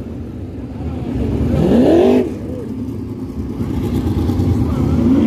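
Winged dirt sprint cars' V8 engines running on the track, with a steady rumble from the field. About two seconds in, one car's engine climbs sharply in pitch as it accelerates past and then drops away. Another begins to climb near the end.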